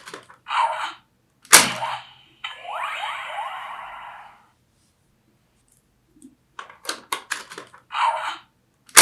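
Ben 10 Disc Ultimatrix toy being worked: a run of sharp plastic clicks as a disc and the dial are handled, a short electronic tone, and a loud slam as the dial is pressed down about a second and a half in. That is followed by about two seconds of electronic transformation sound effect with rising sweeps. After a pause the clicks, the tone and another slam come again near the end, as the next disc is loaded.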